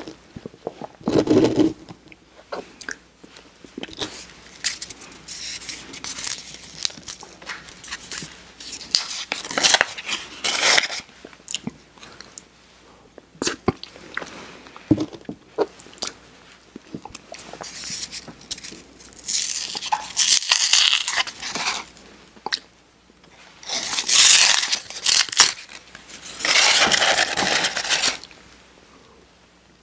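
Close-miked crinkling and tearing of paper sleeves being pulled off wafer ice cream cones, in several bursts, with small crackles and clicks from handling in between.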